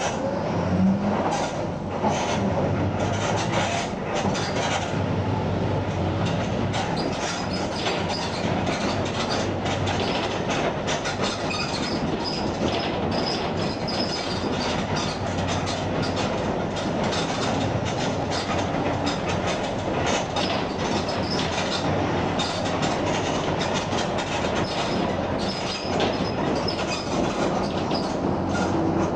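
Mercedes-Benz OF 1721 BlueTec 5 bus under way, its engine running at mid revs and its differential growling, with steady road noise and frequent rattles and knocks from the body.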